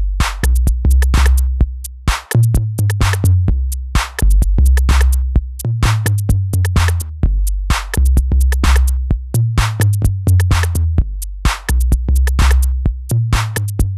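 An 808 drum-machine beat looping in Native Instruments Maschine, with short clicky hits, under a bass line played live from the pads on a long, monophonic 808 kick sound. The low bass notes step between a few pitches in a repeating pattern.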